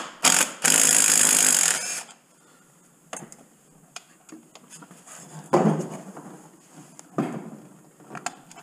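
Cordless drill-driver spinning for about a second and a half as it backs a bolt out of a motorcycle's side cover, followed by scattered knocks and rattles as the loosened cover is worked free by hand.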